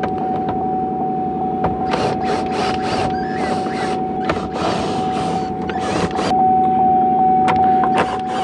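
Auto repair shop background noise: a steady machine hum with a constant high whine, and several hissing bursts between about two and six seconds in, with scattered light clicks.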